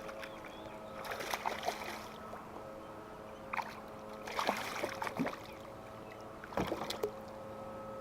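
Splashing and knocking around a fishing kayak in three or four short bursts while a hooked bass is fought and landed, over a steady hum.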